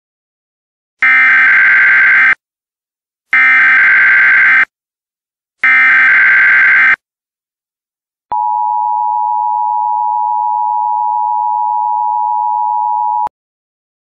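Emergency Alert System tones: three identical bursts of SAME header data, each a harsh buzzing digital squawk about a second and a half long, with short gaps between them. These are followed by the EAS two-tone attention signal, a steady dual-tone beep held about five seconds that cuts off abruptly.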